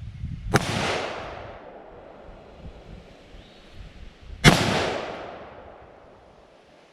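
Two rifle shots about four seconds apart, each followed by a long echo that fades over a second or two. The rifle is an Adams Arms AR-15 with a 14.5-inch barrel, fired in slow aimed shots at a paper target.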